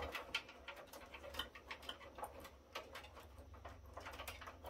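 Light, irregular clicks and rattles of hands handling cables and plastic connectors inside a metal server case, over a low steady hum.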